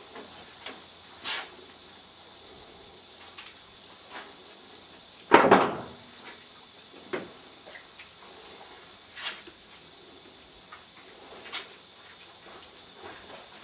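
Steady faint high chirring of crickets, with scattered light clicks and knocks of tack while a horse is bridled. One much louder sharp knock comes about five seconds in.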